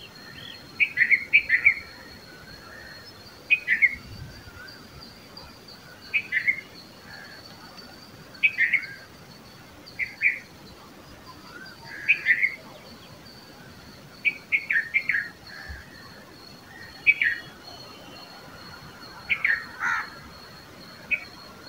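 Red-vented bulbul calling: short, sharp chirps in clusters of two or three quick notes, repeated every one to two seconds.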